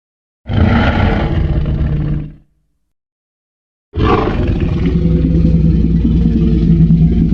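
Two movie Tyrannosaurus rex roar sound effects: a roar of about two seconds, then, after about a second and a half of silence, a longer roar held on a steady low pitch.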